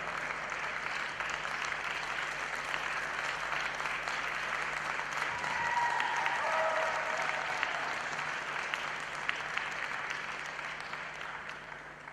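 Arena crowd applauding steadily, the clapping dying away over the last few seconds.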